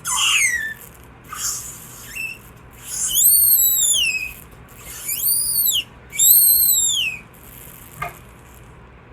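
High whistle-like tones gliding in pitch: a short falling one at the start, then three longer ones, each rising and then falling.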